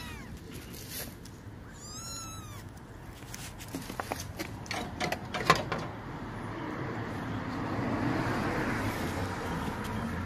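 A few short chirping animal calls about two seconds in, then a string of sharp clicks and knocks, the loudest a little past halfway. Over the last few seconds a broad rush of noise swells and fades.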